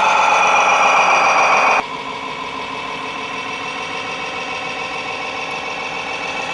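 Radio-controlled model truck running: a steady mechanical whine with an engine-like hum, slightly falling in pitch, that drops sharply in level about two seconds in and carries on more quietly.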